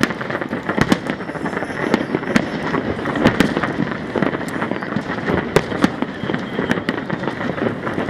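Fireworks display going off continuously: a dense crackle of many bursts with sharper individual bangs every second or so.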